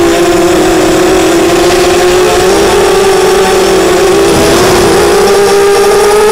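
Brushless motors and 5-inch props of a ZMR250 racing quadcopter (Cobra 2208 2000 kv motors, 5045 props) whining in flight, heard from on board. The pitch wavers and rises and falls a little as the throttle changes, with wind noise mixed in.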